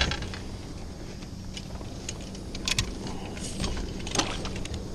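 Handling noises in a small fishing boat: a thump at the start, then scattered light clicks and rattles of gear being moved, over a faint steady low hum.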